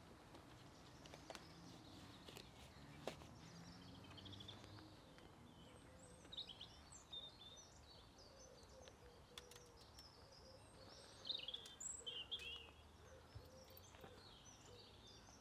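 Faint birdsong: small birds chirping and twittering, busiest in the second half, over a quiet background, with a few faint clicks.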